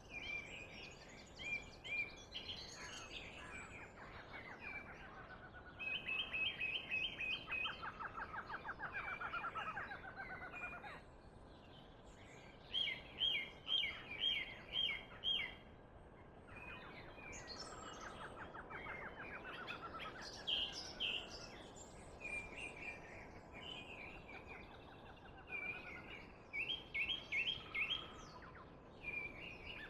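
Songbirds singing, with quick runs of repeated notes and trills recurring every few seconds over a faint steady background hiss.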